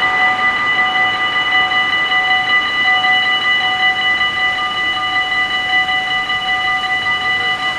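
Dutch AHOB level-crossing warning bells ringing steadily in several overlapping tones, the warning that a train is coming as the half-barriers come down.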